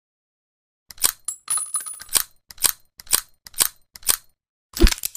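.357 Magnum revolver mechanism clicking: a brief metallic rattle, then five sharp clicks about half a second apart, as of the hammer cocking and the cylinder turning. A heavier clack near the end runs into a short hiss.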